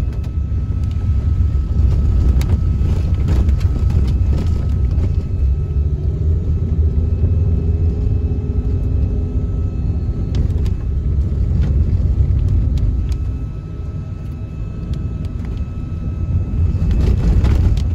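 Steady low rumble of a moving car's engine and tyres on a wet road, heard from inside the cabin; it eases briefly about three-quarters of the way through.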